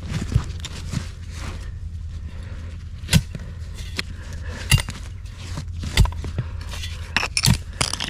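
Digging in soil with a hand tool: scraping with scattered sharp knocks and clinks, the loudest a little after three seconds and at six seconds, over a steady low rumble.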